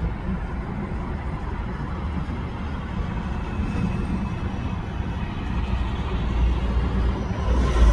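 Twin-engine jet airliner on approach to land: a low engine rumble that grows steadily louder as it nears, swelling most toward the end.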